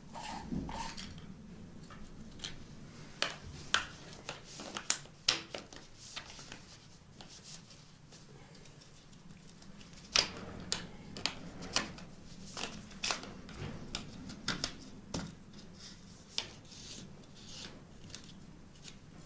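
Black plastic pipe and its fittings being handled and worked by hand: irregular sharp clicks and light scraping of plastic, busiest about three to six seconds in and again from ten to fifteen seconds.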